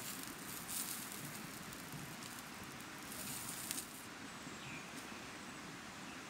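Campfire crackling and lamb cutlets sizzling on a grill over the coals, with a few sharp clicks; the hiss drops away about four seconds in.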